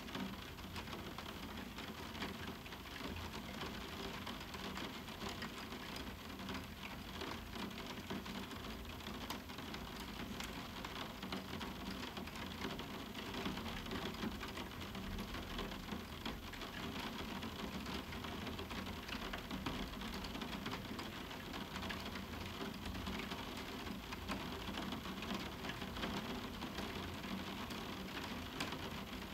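Steady medium summer rain falling on a roof window, countless drops ticking on it over an even hiss, with no thunder.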